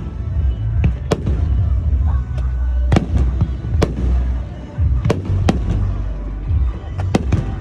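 Aerial fireworks bursting: about nine sharp bangs at uneven intervals over a continuous low rumble of booms.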